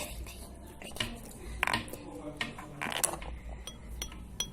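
Scattered light clicks and small clinks of hard objects being handled, with a few brief ringing clinks near the end.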